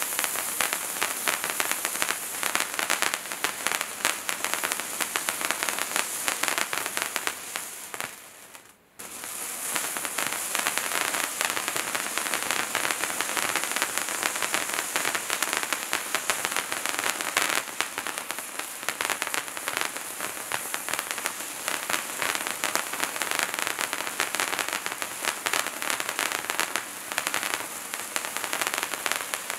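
Bright Star Wizards Wands hand-held firework fountains burning with a steady, dense hiss of crackling sparks. About eight seconds in the sound fades and stops for a moment, then the next fountain starts up.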